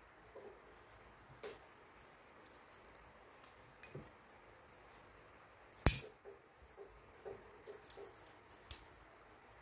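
Small handling clicks and light scraping as a knife works at the wrapped stator coil of an electric fan motor, with one sharp, louder click about six seconds in.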